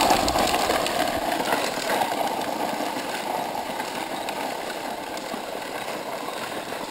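Electric RC truck running hard, its motor going and its tyres digging into the dirt, gradually growing quieter.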